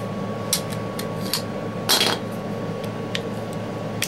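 Several short, sharp metallic clicks and clinks from Browning Buck Mark .22LR pistols being handled as they are cleared. The loudest comes about two seconds in.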